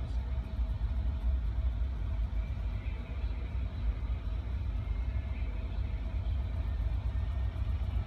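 Range Rover Sport's 3.6-litre TDV8 twin-turbo diesel V8 idling, heard from inside the cabin as a steady low rumble.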